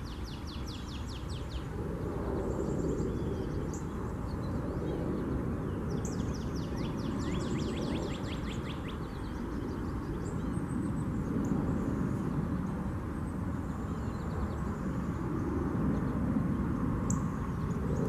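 A songbird's rapid trill of evenly repeated high notes, heard twice: once at the start and again about six seconds in, each lasting a few seconds, with a few faint chirps later. A steady low rumble of background noise runs underneath.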